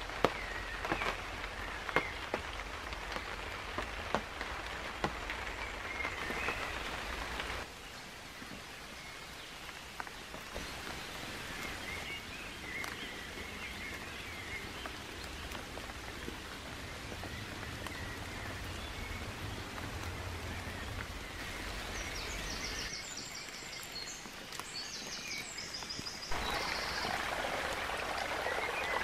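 Rain falling on a tarp, with sharp drips landing now and then and birds chirping, then softer woodland ambience with birdsong, including a high repeated song. Near the end a rain-swollen stream is heard running over stones.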